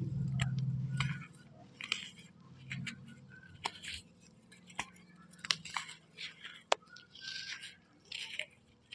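Chalk being chewed close to the microphone: scattered crunchy clicks and short gritty grinding scrapes. A low hum sounds in the first second before the chewing takes over.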